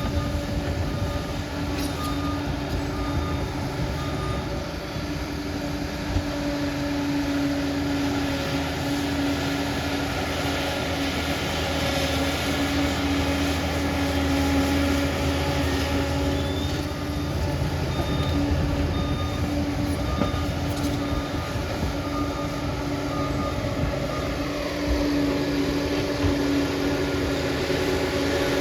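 Crawler bulldozer at work: its diesel engine and steel tracks running steadily, with faint high tones repeating in short pulses.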